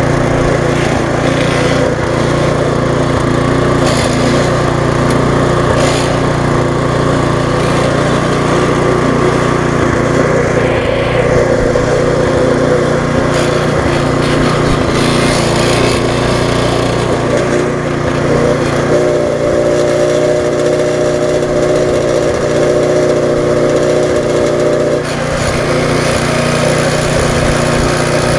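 Briggs & Stratton Classic engine on a Viking walk-behind mulching mower running steadily after a carburettor refurb, just started. Its note changes slightly about two-thirds of the way in.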